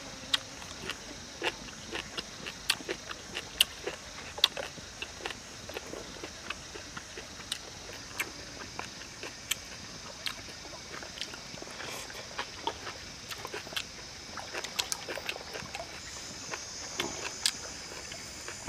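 A person eating close to the microphone: chewing and lip-smacking, with irregular sharp clicks about one or two a second, some in quick clusters, over a steady high hiss.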